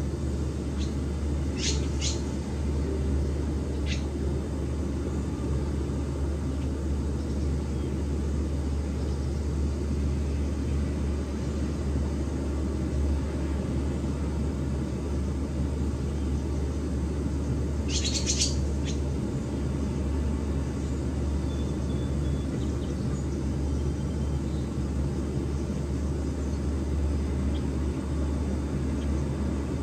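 Steady low rumble, with a few short high chirps from barn swallows: two near the start, one more shortly after, and a quick burst of chirps about eighteen seconds in.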